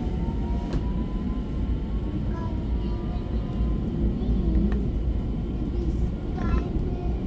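Tram running on its rails, heard from inside the car: a steady low rumble of wheels and running gear, with a faint electric motor whine rising in pitch near the start and a few light clicks.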